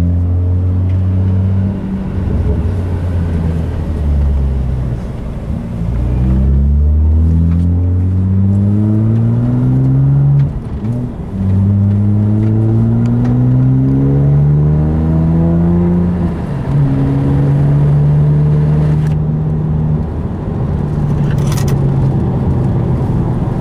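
A tuned BMW 1M's twin-turbo straight-six (Devotec, 477 hp, uprated turbos) pulls hard on track and is heard from inside the cabin. Its pitch rises again and again under acceleration and drops at each gear change or lift for a corner.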